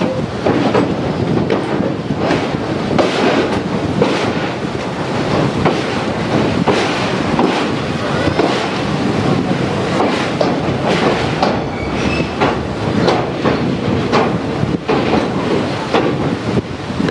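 Passenger train coaches rolling slowly over the steel Pamban rail bridge: wheels clattering on the track with frequent irregular clanks and knocks from the steel span.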